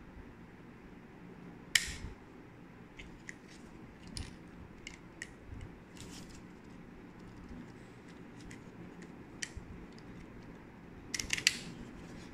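Plastic clicks and handling noises from an electric hair clipper's detachable adjustable comb guide being worked by hand: scattered single clicks, a sharp one about two seconds in and a quick run of several clicks near the end.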